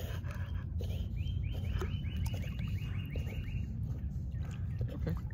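An animal's high chirping call: a rapid series of about a dozen short, evenly spaced notes, roughly five a second, lasting a couple of seconds. A steady low rumble runs underneath.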